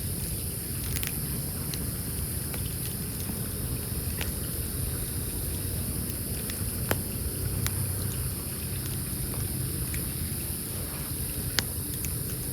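Wood campfire burning, with scattered sharp crackles and pops over a steady low rumble; the loudest pops come about seven seconds in and near the end.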